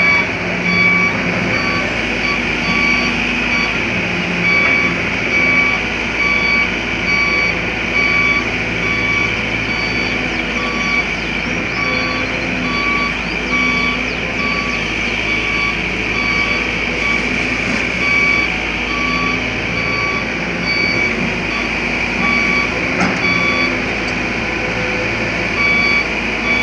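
Kobelco hydraulic excavator running its diesel engine steadily while its alarm sounds a high beep repeating about once a second, the warning that the machine is moving.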